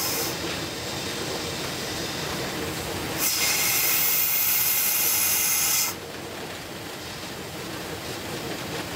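Cab sound of a South African Railways Class 25NC 4-8-4 steam locomotive: a steady rumbling hiss, with a louder burst of steam hissing from about three seconds in that cuts off sharply near six seconds.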